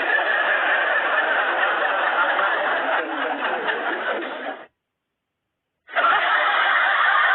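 Recorded laughter sound effect, thin-sounding: one laugh clip that cuts off suddenly, then a second or so of total silence, then another laugh clip.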